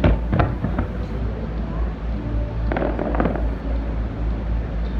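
Aerial fireworks bursting: a few sharp bangs in the first second, then a quick cluster of crackling pops about three seconds in, over a steady low rumble.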